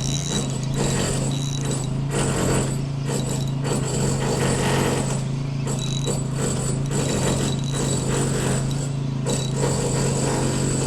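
Shimano Sedona 1000 spinning reel being wound, its gears and handle giving a continuous mechanical whirring rattle as a fish is retrieved, over a steady low hum.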